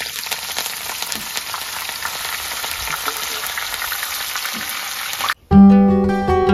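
Curry leaves frying in hot oil: a steady sizzle with fine crackles, which cuts off suddenly about five seconds in. Background music with a low bass note starts right after.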